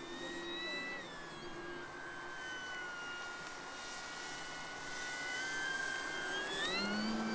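Electric motor and propeller of a Durafly Slow Poke RC airplane whining in flight. The pitch drops about a second in, holds steady, then climbs quickly near the end as the throttle is opened.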